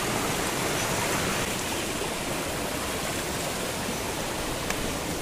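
Rocky mountain stream with a small waterfall splashing into a pool among boulders: a steady rush of water.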